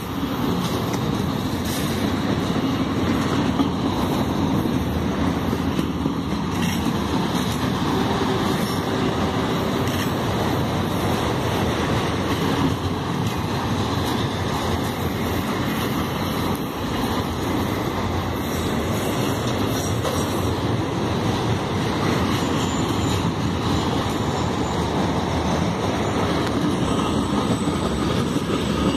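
Freight cars (enclosed autoracks and a tank car) rolling past: a steady rumble and rattle of steel wheels on the rails, with occasional clicks.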